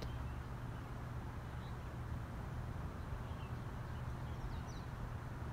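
Outdoor ambience: a steady low rumble with a few faint, short bird chirps scattered through.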